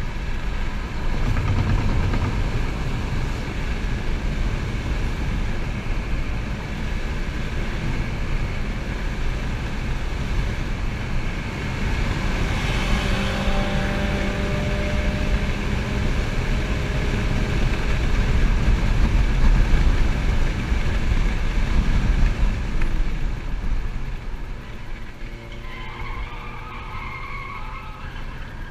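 Heard from inside the cabin, a 2011 Chevrolet Volt at speed on a road course: steady tyre, road and wind noise over a low rumble, with a faint whine that shifts in pitch now and then. The noise builds to its loudest a little past the middle, then eases off near the end.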